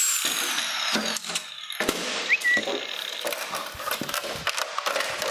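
Angle grinder's cut-off wheel winding down, a thin whine falling steadily in pitch over the first two seconds, among irregular metallic clicks and knocks.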